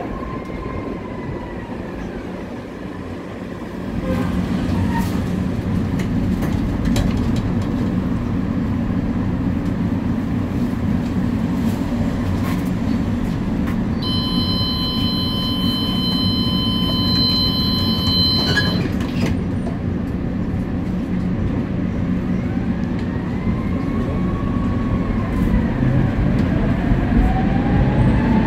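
Electric tram running along street track: a steady low rumble of wheels on rails that grows louder a few seconds in, with the motors' whine gliding up and down in pitch near the start and again near the end. A steady high whistling tone sounds for several seconds around the middle and cuts off suddenly.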